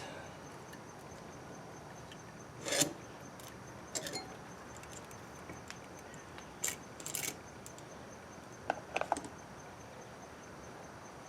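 Scattered light metallic clinks and taps of small engine parts and hand tools being handled during a cylinder and piston removal on a Honda XR80R 80cc engine, a few sharp clicks at irregular intervals with quiet between them.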